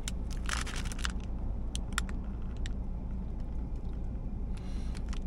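Steady low rumble of a car idling, heard inside the cabin. A few short paper-wrapper crinkles in the first three seconds as a wrapped sandwich is handled.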